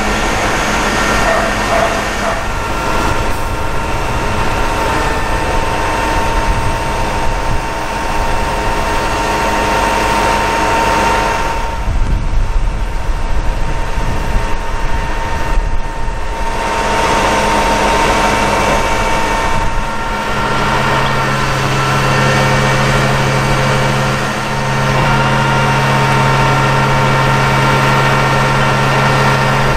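Diesel engines of heavy construction machinery idling and running steadily, with a steady high whine over the engine noise. About two-thirds of the way through, a deeper steady engine drone comes in and holds.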